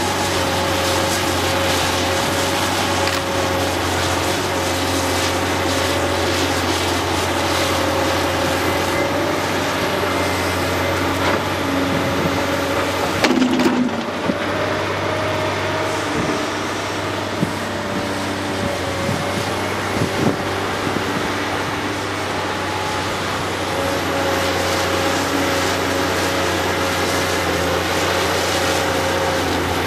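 Caterpillar 385C hydraulic excavator's C18 diesel engine and hydraulics running steadily under load through a loading cycle, with a constant whine. About 13 seconds in, rock and soil clatter as the bucket is dumped into the dump truck's body, followed by a few single knocks.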